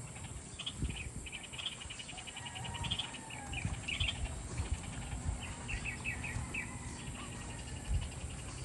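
Small birds chirping in quick rapid trills and short falling calls over a steady high insect drone, with uneven low rumbling bumps underneath.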